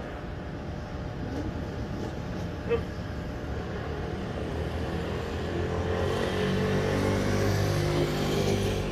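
Background traffic noise, with a motor vehicle engine growing steadily louder over the last few seconds. A brief squeak sounds about three seconds in.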